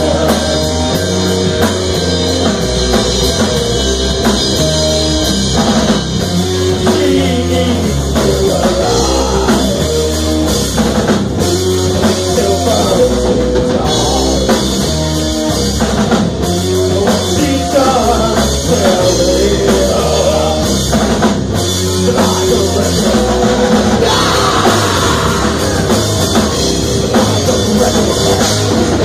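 Live rock band playing loudly and without a break, the drum kit prominent over the guitars.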